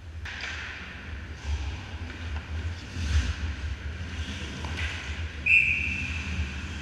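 Ice skate blades scraping on the rink ice in several short hisses over a low rumble. About five and a half seconds in, a referee's whistle sounds once, a steady high tone that fades over about a second.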